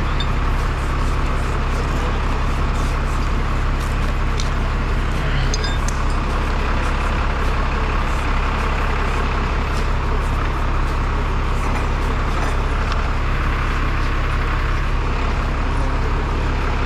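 Truck engine running steadily, powering its hydraulic crane, with a few faint light clicks.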